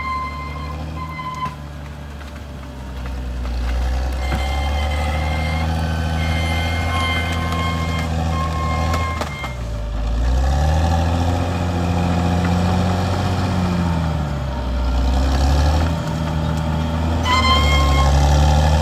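Caterpillar D6R XL bulldozer's diesel engine working under load, its pitch dropping about halfway through and then rising and falling as it revs. A reverse alarm tone sounds at the start and again near the end, a sign of the dozer backing up.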